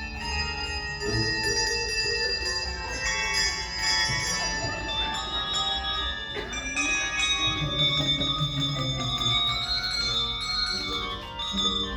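A handbell choir ringing a piece together: many handbells sounding melody and chords at once, their notes ringing on and overlapping, with deep bass bells carrying the low notes.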